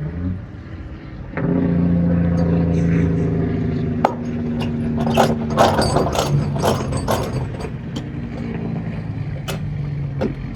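Irregular metallic ratcheting clicks of a cargo tie-down ratchet being worked. Beneath them a steady engine hum starts about a second and a half in.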